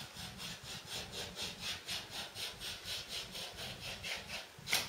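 Quick back-and-forth rubbing strokes against the top edge of a painted wooden skirting board, about four a second, with a sharper scrape near the end.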